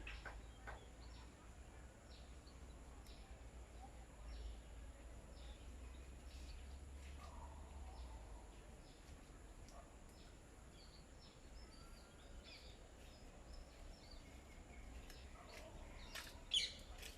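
Small birds chirping in short, scattered calls, faint over a low steady background rumble, with one louder call near the end.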